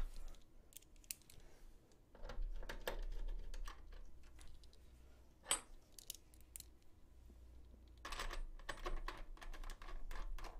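Small parts of an AIO cooler's Intel mounting kit being handled and set around a CPU socket: scattered light clicks and rattles in two short flurries, with one sharper click about halfway through.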